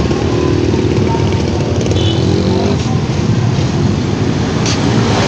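Busy city street traffic running steadily: the engines of passing cars, motorcycles and a truck, with passers-by talking.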